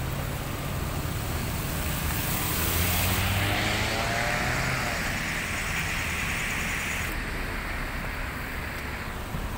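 Road traffic on a wet road: a car's tyres hiss past, swelling about two seconds in and fading after about seven seconds, over the low hum of an engine idling close by that dies away about halfway.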